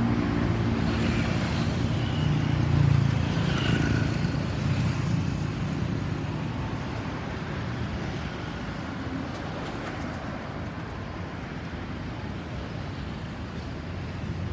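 A motor vehicle's engine passes close by, then fades over several seconds into steady road-traffic noise.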